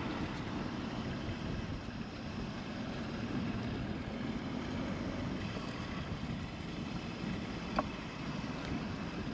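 Steady wind noise on the microphone, with one short faint tick about eight seconds in.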